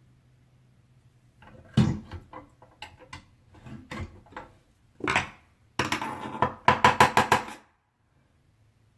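Hard objects and tools being handled: irregular knocks and clicks, a louder rattle about five seconds in, then a fast run of clattering clicks that cuts off suddenly.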